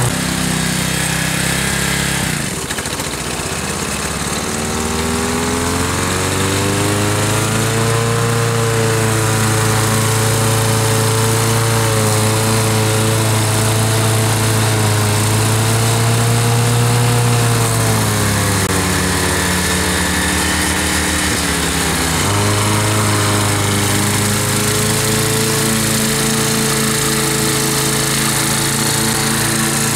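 Ride-on lawn mower's engine running while cutting grass. Its pitch sags and recovers several times, dropping sharply about two seconds in and again around two-thirds of the way through, as the engine is loaded and freed.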